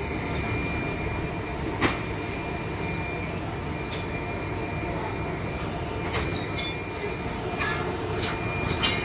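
Steady hum and noise of foundry workshop machinery with a thin, high whine running through it, broken by a few short scrapes and knocks of a shovel working moulding sand.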